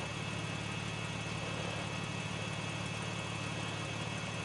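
A steady, unchanging low mechanical hum, like an idling engine, over an even hiss.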